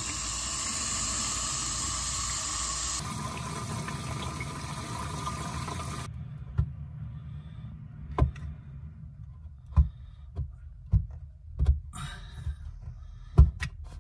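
Water from a garden-hose spray nozzle rushes into a camper trailer's fresh-water tank fill inlet, a loud steady hiss that changes about three seconds in and cuts off abruptly about halfway through. After that come a handful of sharp clicks and knocks as brass and PVC plumbing fittings are handled.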